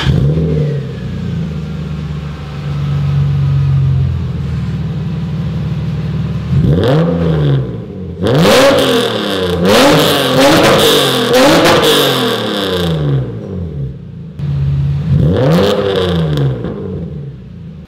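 Lexus IS300's 2JZ-GE inline-six with a cheap long-tube header, just started and idling, then revved: one blip about seven seconds in, a quick run of blips after it, and one more near the end. The exhaust is very loud and aggressive, "pretty ridiculous" and "pretty gnarly".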